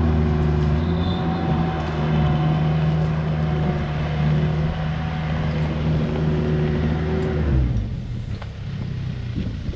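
An engine running steadily at a constant speed, then shutting off about seven and a half seconds in.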